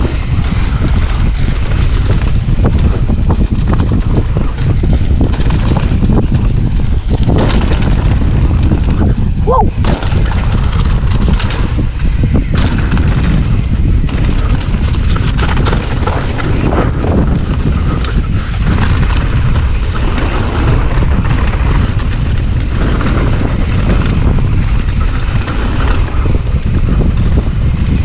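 Heavy wind buffeting on an action camera's microphone while riding a mountain bike downhill, with scattered knocks and rattles from the bike over rough ground.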